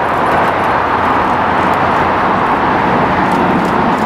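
Twin jet engines of a Boeing 787 Dreamliner at takeoff thrust as the airliner lifts off: a loud, steady rushing noise.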